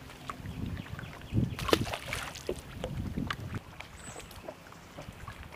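Small waves slapping against the hull of an aluminum-or-fiberglass bass boat, with a scatter of sharp knocks and clicks, the loudest about a second and a half in.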